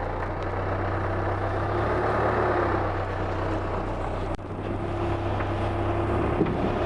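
Telehandler's diesel engine running steadily with a hydraulic whine as it reaches over to load sand into a volumetric concrete truck's bin. The whine drops out briefly about four seconds in, then returns.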